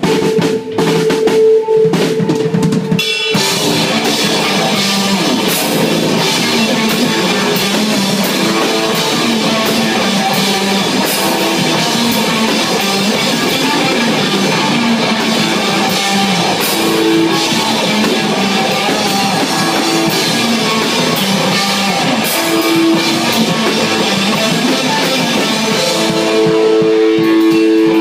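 Live rock band playing: drum hits over a held guitar note for the first few seconds, then the full band with drum kit and guitar comes in loud about three seconds in and plays on.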